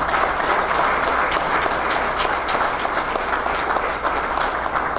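Audience applauding: many people clapping together, holding steady throughout.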